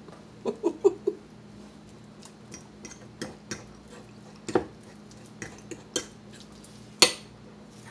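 Fork mashing banana on a plate: metal tines clicking and scraping against the plate in scattered sharp taps, the loudest about seven seconds in.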